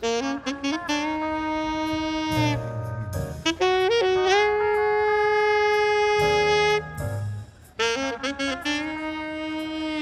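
Saxophone playing a slow jazz melody, with two long held notes, the second and longer one from about four seconds in to nearly seven seconds.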